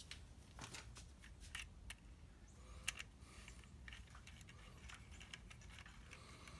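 Faint scattered clicks and taps of a slot car's plastic body and metal chassis being handled and worked apart with a small screwdriver.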